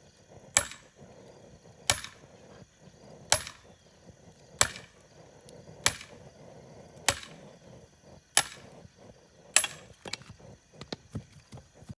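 Sharp clicks at an even pace, about one every second and a quarter, then a quicker run of smaller clicks near the end.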